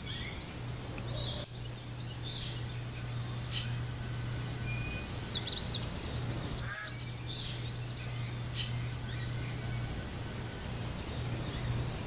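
Wild birds calling: a quick run of about ten high, sweeping notes about four seconds in, with scattered single chirps around it. A steady low hum continues underneath.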